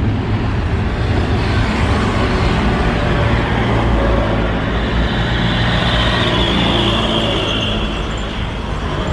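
Twin-engine widebody jet airliner on final approach with its landing gear down: a steady, loud engine rumble with a high whine that grows stronger in the middle.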